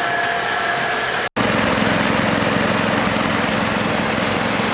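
Engine of a fish-stocking truck running steadily under a rushing noise. About a second in the sound cuts out for an instant, then picks up again as a steady drone with a low hum and a fast, even pulse.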